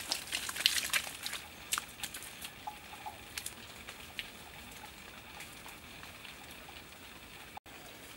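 Hand scraping and rubbing across a sandy mud surface: a quick run of gritty scratches and small wet-sounding scrapes that thins out after about three and a half seconds, leaving a steady faint outdoor hiss.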